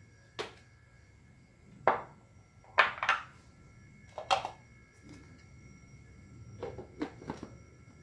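Sharp knocks and clicks of a metal fork tapping against a plastic blender jar as pieces of sweet potato are pushed off into it, with the blender switched off. A quick cluster of knocks near the end as the plastic lid is set on the jar.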